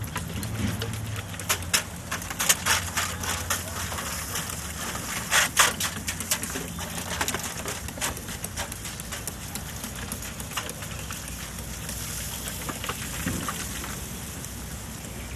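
Trigger spray bottle spritzing liquid onto a whole smoked hog: quick hissing sprays in bunches, the loudest about two and a half and five and a half seconds in, over a steady low hiss.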